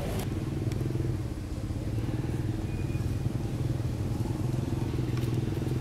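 An engine running steadily at a constant speed: a low, even hum that does not rise or fall, with a few faint clicks over it.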